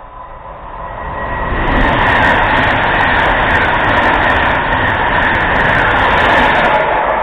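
Virgin Trains express passenger train running through the station at speed without stopping. Its rushing noise builds over the first second or so, then holds loud and steady with a high hum through it.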